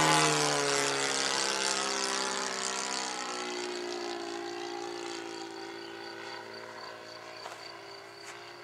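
Engine of a radio-controlled model Spitfire running in flight, a steady drone whose pitch drops over the first few seconds and then holds while the sound fades as the plane draws away.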